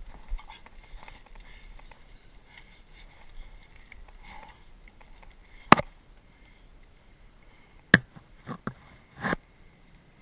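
Sharp single snaps of airsoft guns firing in a skirmish, spaced out: one a little past halfway, then four more in quick succession near the end, with faint rustling of movement between.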